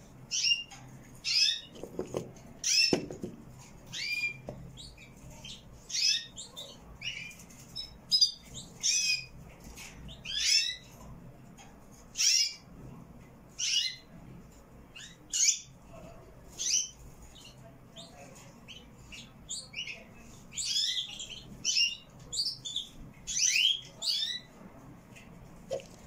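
Canaries chirping: short high calls, most sliding down in pitch, coming irregularly about once or twice a second.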